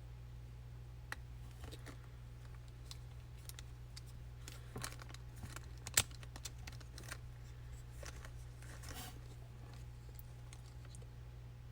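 Scattered small plastic clicks and taps from handling the GoPro Max camera, with one sharper click about halfway through, over a faint steady low hum.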